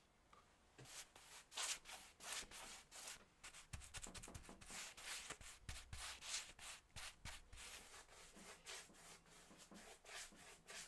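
Paintbrush brushing paint onto a wooden table rail: a faint, quick run of soft back-and-forth strokes, starting about a second in.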